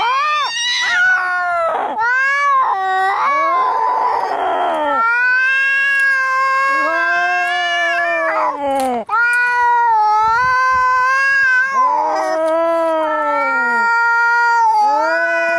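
Angry domestic cats caterwauling as in a fight: long, drawn-out, wavering yowls one after another, with a harsher, rasping cry about four seconds in.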